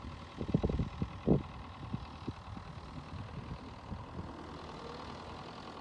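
A David Brown 850 Implematic tractor's engine running as the tractor drives along, a steady low drone. Irregular low thumps break over it in the first couple of seconds, then it settles.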